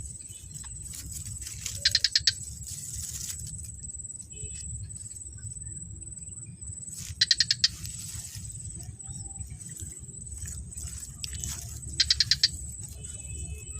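Insect chorus outdoors: a steady high-pitched trill, with a louder call of about five quick chirps that comes back roughly every five seconds, three times in all, over a steady low rumble.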